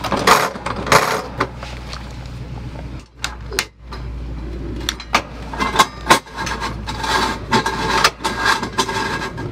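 Paseco kerosene heater being lit by hand: a scatter of clicks and light metallic rattles as its ignition door is opened and a long lighter is worked in at the wick.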